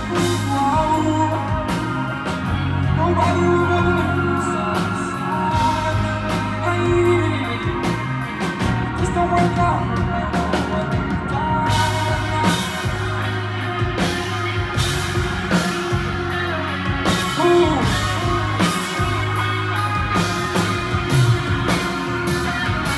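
Loud live hip-hop concert music over a venue sound system: a heavy bass beat with vocals, recorded from within the crowd.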